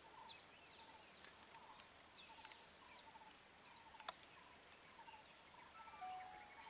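Faint outdoor ambience: scattered short bird chirps and a high, thin insect whine that comes in stretches of about a second with brief gaps. A single sharp click about four seconds in.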